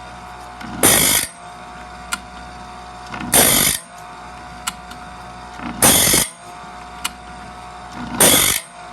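A small 4-inch diamond grinding wheel sharpening bandsaw blade teeth. The motor whines steadily, and four short, loud grinds come about two and a half seconds apart, one per tooth, with a light click between each grind.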